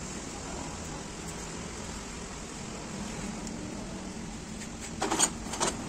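Steady workshop background noise with a faint low hum, then about five seconds in a short clatter of a few sharp metallic clinks as the brake servo's steel coil springs are handled and knock together.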